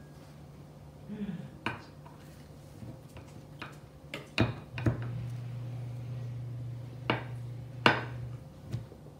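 Metal spatula clinking and scraping against a glass baking dish as it cuts into a layered pudding dessert: about six sharp clinks spread over several seconds, over a low steady hum that gets louder for a few seconds in the second half.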